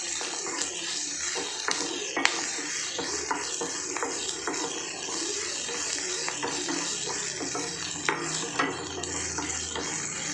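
Spatula stirring and scraping chopped onions in a nonstick kadai, with frequent clicks and taps against the pan over a steady sizzle of onions frying in oil.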